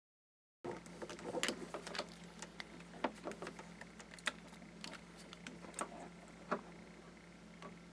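Scattered clicks and taps of multimeter test leads and a yellow plastic plug being handled, starting about half a second in, over a steady low hum.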